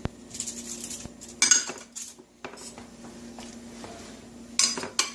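Kitchen utensils and dishes handled on a counter: a sharp knock at the start, then several short clattering, rattling bursts. A steady low hum runs underneath.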